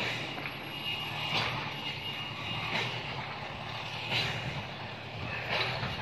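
Footsteps on concrete, about one every second and a half, over a steady machine drone with a low hum.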